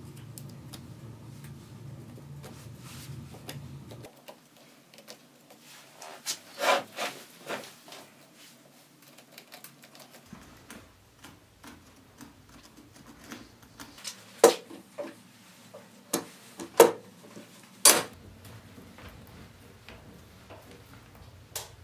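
Workbench handling sounds: faint scratching of pencil and marker on a log, with several sharp knocks and clacks of tools set down and handled on the bench. A steady low hum stops about four seconds in.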